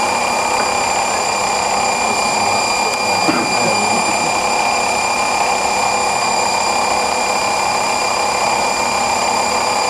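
Steady machine-shop running noise: a constant mechanical hum with several fixed high-pitched whines over it, unchanging throughout.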